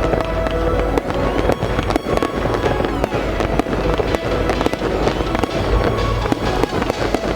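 Fireworks display going off in quick succession, many sharp bangs and crackles, with music playing underneath.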